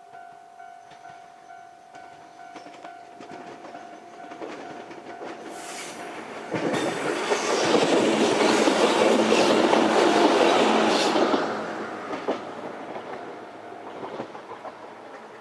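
Japanese level-crossing warning bell ringing about twice a second, then a JR 103 series 3500 electric train running over the crossing, its wheels clattering over the rail joints. The train is loudest for about five seconds in the middle, then fades away.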